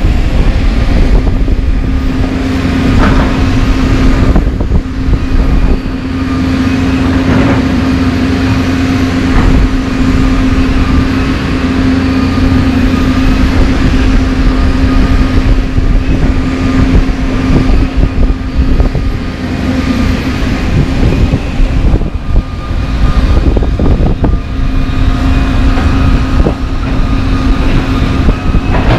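John Deere 350D LC excavator's diesel engine working under load with a steady drone, easing off briefly about three-quarters of the way through. Now and then come short knocks and scrapes of broken asphalt against the bucket.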